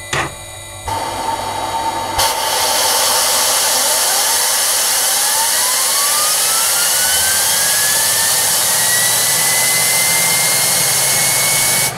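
Holset HE500VG turbocharger spinning up on an air-driven test bench at minimum flow. A loud rush of air starts about two seconds in, and a whine climbs steadily in pitch as the rotor speeds up.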